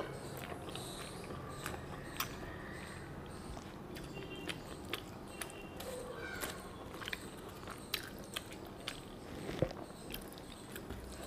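A person chewing a mouthful of rice and fried vegetables eaten by hand, with many small scattered smacking clicks.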